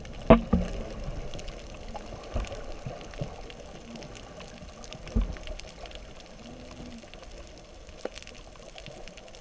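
Underwater sound picked up by a camera held on a pole below the surface: a steady muffled wash of water with a few dull knocks, the loudest about a third of a second in and another about five seconds in.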